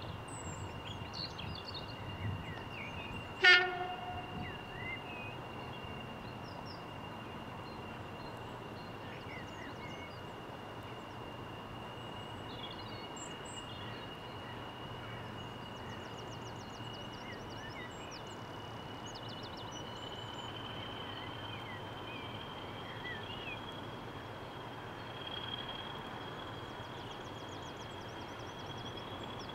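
English Electric Class 40 diesel locomotive running at low power, with a thin steady whistle from its turbochargers that rises slightly after about twenty seconds. One short horn blast sounds about three and a half seconds in.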